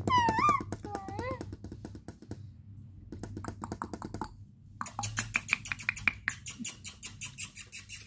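Indian ringneck parakeet vocalizing: a few wavering, whistly speech-like notes at the start, then fast clicking, buzzy chatter with short pauses, growing louder over the last three seconds.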